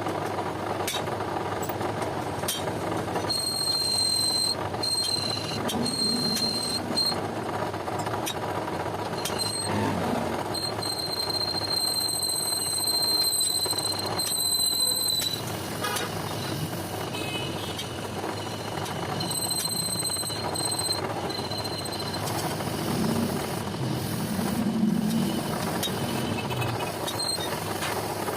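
A machine running steadily, with a high-pitched whine that comes and goes in stretches of a few seconds.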